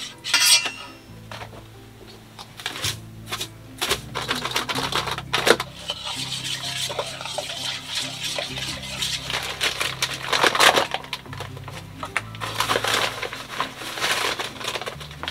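Background music with a steady bass line over kitchen handling sounds: repeated clicks and clinks of containers and a measuring cup against a stainless-steel mixing bowl as dough ingredients are shaken and poured in, with rustling of a paper flour bag near the end.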